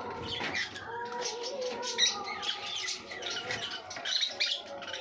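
Conures chirping and squeaking: many short, quick high calls, thickest near the end.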